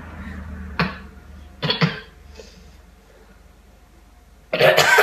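Coughing while chewing a Dragon's Breath chilli: the heat catches the throat. One sharp cough comes about a second in, then a quick double cough. A louder burst of coughing starts near the end.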